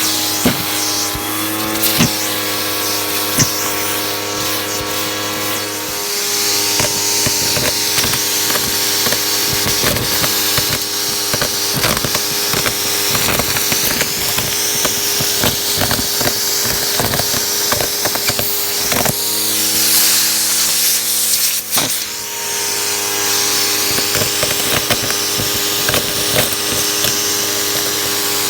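Hoover vacuum cleaner running, its motor humming steadily with frequent clicks and rattles. The motor's pitch drops about six seconds in and shifts again a few seconds before the end, as the load on it changes.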